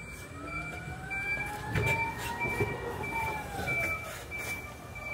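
Electronic warning beeper sounding a short high beep about twice a second, with a fainter whine that rises and then falls under it, of the kind a reversing or moving powered vehicle gives.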